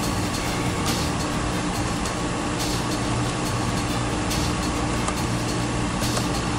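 Steady machine hum and hiss, with faint ticks about every two seconds.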